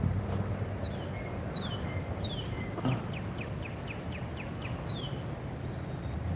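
A songbird calling: four sharp whistles that slide quickly downward, with a quick run of about eight short notes in the middle. A steady low rumble of distant traffic or wind lies underneath.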